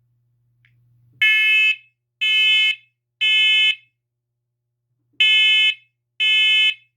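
First Alert SC7010BVA combination smoke and carbon monoxide alarm sounding its smoke-alarm test pattern: a group of three loud, shrill half-second beeps about a second apart, a pause, then the first two beeps of the next group of three.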